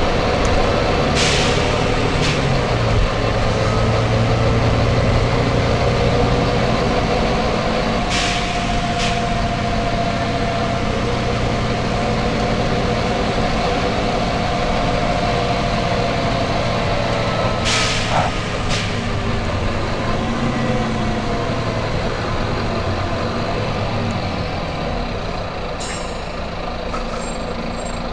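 Volvo B9TL bus's nine-litre six-cylinder diesel engine running steadily. Short, sharp compressed-air hisses from its air system come in pairs three times: about a second in, about eight seconds in, and about eighteen seconds in.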